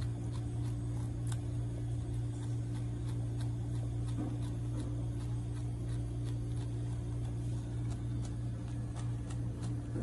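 Steady low mechanical hum, with faint irregular small clicks of a young wallaby chewing leaves.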